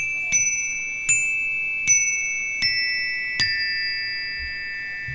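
Bright struck chime notes, six strikes about half a second to a second apart. Each keeps ringing under the next, so the tones pile up, and the pitch mostly steps down from strike to strike.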